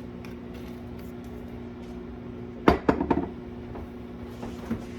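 Kitchen handling sounds over a steady hum: one sharp clack about halfway through, followed at once by a brief rattle of smaller knocks.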